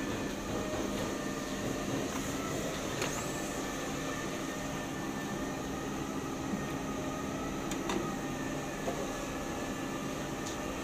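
Conveyor drying oven for screen printing (IR lamps, circulating hot air) running with a steady fan and motor hum, joined by a few light clicks.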